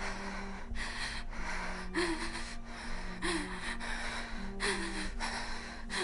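A person breathing hard in repeated gasps, about one every second and a half, some with a slight voiced catch. A low humming tone runs underneath.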